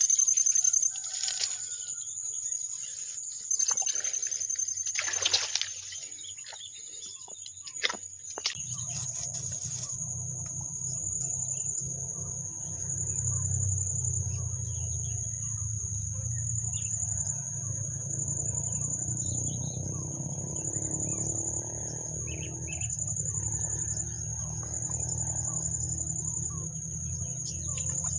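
A steady high-pitched insect buzz throughout. Over it, rustling and clicks of a collapsible crab trap being handled for the first several seconds, then a low steady rumble from about eight seconds in.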